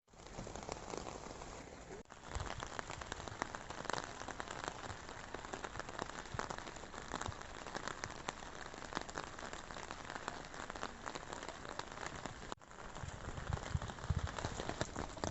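Steady rain falling, with many separate drop ticks striking a surface. It breaks off twice for an instant and carries more low rumble near the end.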